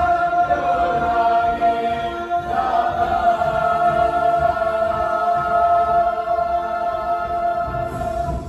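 Musical-theatre chorus singing the long held final chord of the number, re-sung once about two and a half seconds in and cut off together near the end.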